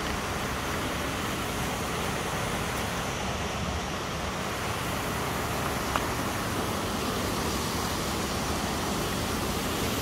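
Steady rush of flowing creek water near a waterfall, with one brief click about six seconds in.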